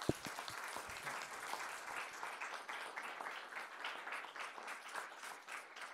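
Audience applauding: many hands clapping at once in a dense, steady patter. A single low thump sounds just after it begins.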